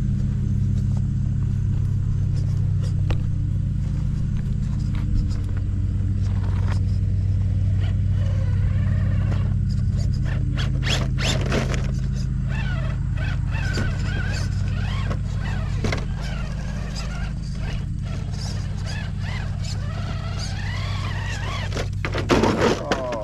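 RC rock crawler with a Hobbywing Fusion SE 1800 brushless motor crawling over rocks: a motor whine that rises and falls with the throttle, with clicks and knocks of tires and chassis on rock. A steady low hum runs underneath, and a louder burst of knocks comes near the end.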